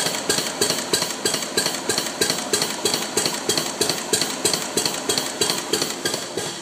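Freshly rebuilt Arrow C-66 engine running at a slow idle, with a regular beat of about four pulses a second.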